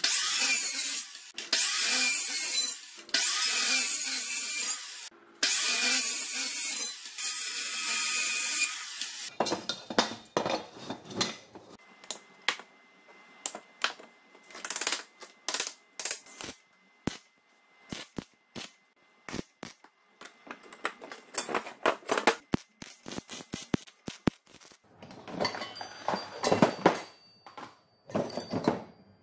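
A metalworking power tool runs loud and hissing in long stretches for the first nine seconds or so, breaking off briefly twice. After that come scattered clicks and knocks of metal parts, sprockets and roller chain being handled and set down on a wooden workbench.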